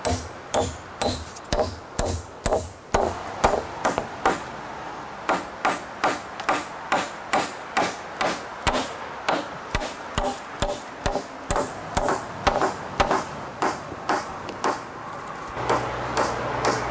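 Hammer driving nails into wooden deck boards, a steady run of sharp strikes about two to three a second. A low steady hum comes in near the end.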